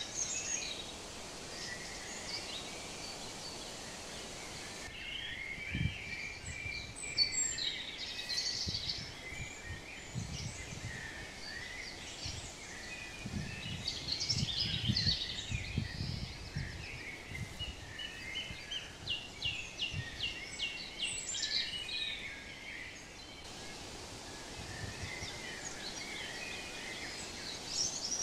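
Several songbirds chirping and singing over a steady outdoor hiss, with a rapid trill a little past the middle. Low, dull thumps come and go, thickest around the middle.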